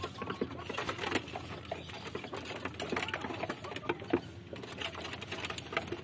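Pigeons pecking feed off a corrugated roof sheet: rapid, irregular taps of beaks against the sheet.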